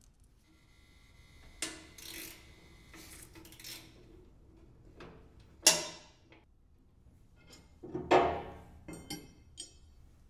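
Steel bolts and wrenches clinking and clanking against each other and a concrete floor while a snowblower's skid shoe hardware is taken off, each hit ringing briefly. The loudest clank comes about halfway through, with a quick run of clinks near the end.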